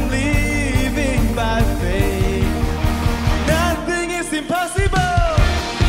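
Worship band playing an upbeat song, with sung vocals over drums and bass. The bass and drums drop out for about a second around four seconds in, then come back.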